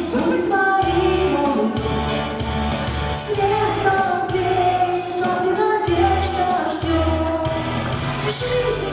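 A young girl singing a pop song over instrumental accompaniment with a steady beat and bass.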